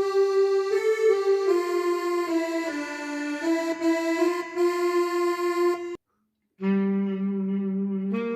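Korg Pa300 arranger keyboard playing a single-line melody on a reedy, wind-instrument Indian tone, stepping between notes. The sound cuts off abruptly about six seconds in. After a brief silence a lower held note starts in a different, thinner voice.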